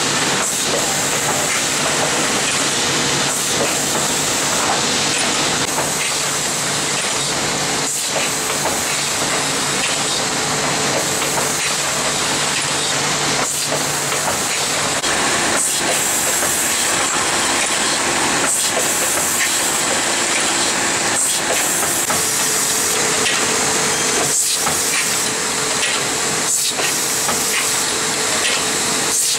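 Automatic paint-roller assembly machine running: a steady hiss of air with a constant low hum.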